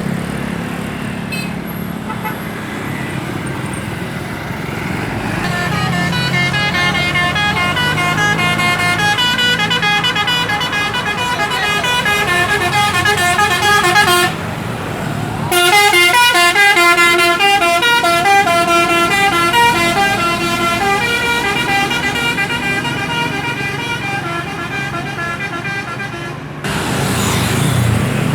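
A bus's Basuri 'telolet' multi-tone horn plays a melody of quick stepped notes over engine and traffic noise. It starts about five seconds in, breaks off briefly about halfway, then plays on until shortly before the end.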